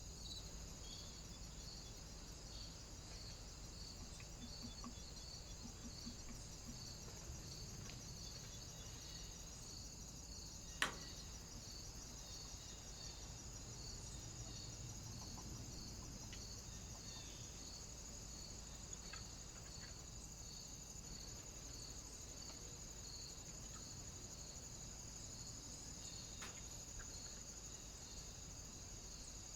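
Faint steady high-pitched electronic whine with an even pulsing a little over once a second: the trail camera's own self-noise. About 11 seconds in there is a single sharp click.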